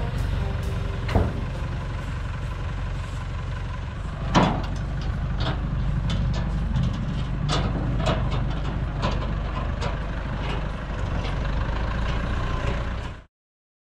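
Farm tractor's diesel engine running steadily as it tows an empty steel tipping trailer, with the trailer clanking and banging over rough ground; two louder bangs come about one and four seconds in. The sound cuts off abruptly near the end.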